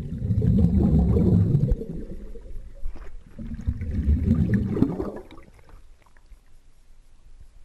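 Scuba diver's exhaled breath bubbling out of the regulator, heard underwater: two bubbly rumbling bursts, the second starting about three seconds in, then it goes much quieter.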